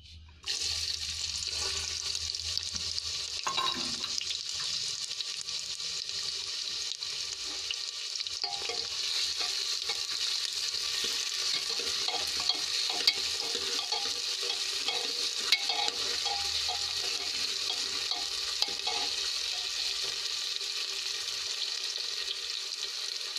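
Chopped onions sizzling in hot oil in a pressure cooker, starting suddenly as they go into the pan. A steel ladle scrapes and clicks against the pot as they are stirred.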